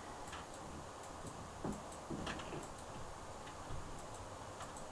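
Faint, irregular light clicks and taps of an acrylic nail brush against a small pot of acrylic powder as the brush is dipped and worked in, over low hiss.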